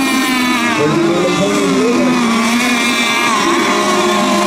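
Engines of several racing RC boats running at once, their high buzzing pitches rising and falling against each other as the boats run the course.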